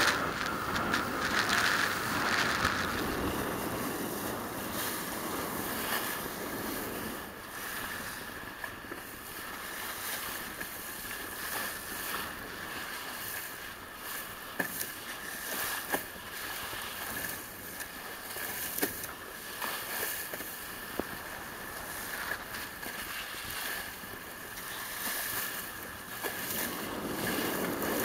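Sea water rushing and splashing past a sailing yacht's bow under way, with wind buffeting the microphone. A faint steady high tone runs underneath, and a few sharp ticks come in the middle.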